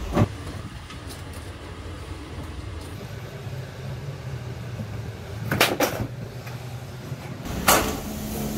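Knocks and clatters of a wooden ramp board and a rusty old Jawa motorcycle being unloaded from the back of a van onto a metal grate: one knock just after the start, then a louder rattling clatter about five and a half seconds in and another sharp knock near eight seconds, over a steady low hum.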